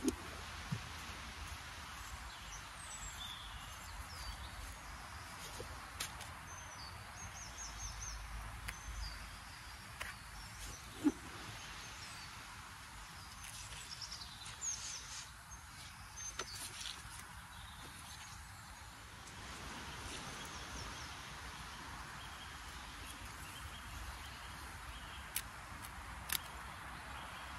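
Garden ambience: wind rumbling on the microphone under a steady hiss, with small birds chirping at times and a few sharp clicks.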